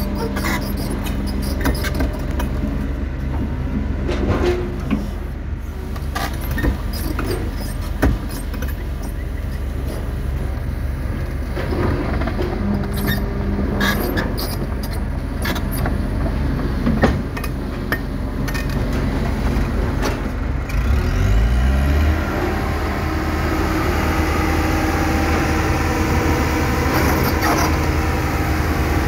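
Kobelco hydraulic excavator's diesel engine running steadily while the bucket digs through earth and stones, with scattered knocks of rock against steel. About 21 seconds in, the engine pitch rises and it runs louder from then on.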